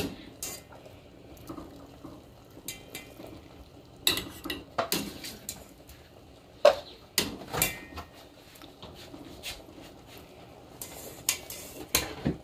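Utensil clinking and knocking against a stainless steel pot as plantain pieces are turned in simmering syrup: scattered sharp knocks, busiest from about four to eight seconds in and again near the end.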